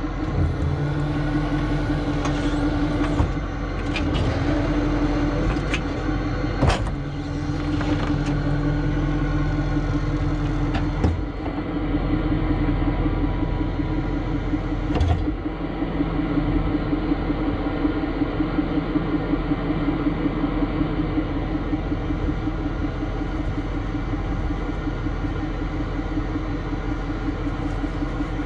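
Tow truck engine running steadily, with a handful of sharp metallic knocks in the first half; the loudest comes about a third of the way through.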